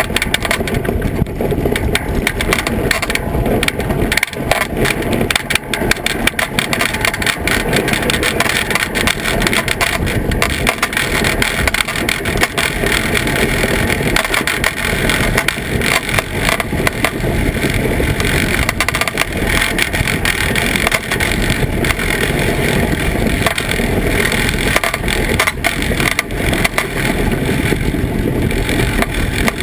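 Iceboat sailing over lake ice: a loud, steady, rough rumble and rattle from the runners and hull on the ice, mixed with wind on the microphone.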